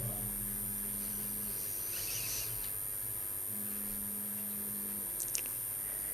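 Quiet pause filled by the steady electrical hum of a microphone and sound system, with a faint high whine. A low tone in the hum drops out for about two seconds in the middle.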